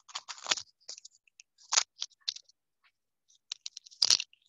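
Scattered light clicks and a few short scratchy sounds at irregular intervals, with a quick cluster of sharper clicks near the end.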